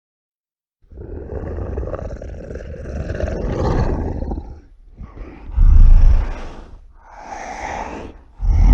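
Monster roar sound effects: after a second of silence, a long growling roar of about four seconds, then shorter deep roars, the loudest in the second half.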